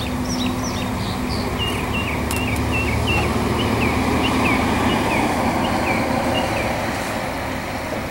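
Diesel locomotive engine idling with a steady low hum that swells slightly midway, while a bird sings a quick series of short downward-slurred chirps, about two a second, that stop about six and a half seconds in.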